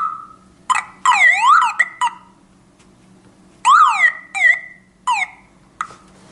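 Car alarm siren with its own small backup battery, set off by reconnecting its black cable: fast up-and-down wailing sweeps in short bursts that cut in and out several times.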